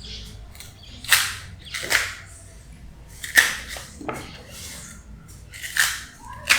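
Kitchenware clattering: about six sharp, unevenly spaced clacks and knocks, as of dishes or utensils being handled.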